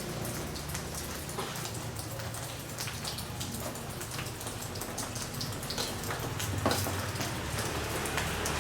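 Rain falling: a steady hiss dotted with many small ticks.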